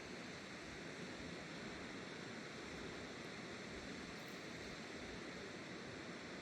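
Steady rush of a mountain river flowing, an even noise with no breaks.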